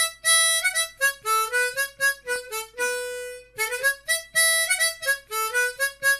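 Harmonica music: a tune of short single notes, several of them bent up in pitch, with one longer held note about three seconds in.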